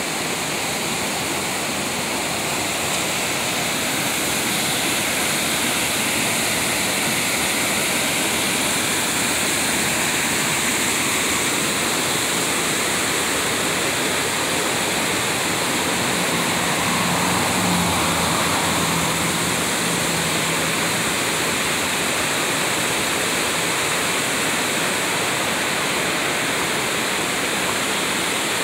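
Mountain stream rushing over rocks, a steady full rush of water.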